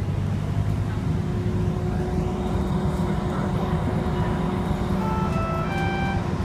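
City bus engine and road rumble, steady as the bus drives along, with a faint steady hum. Near the end come a few short high tones at different pitches.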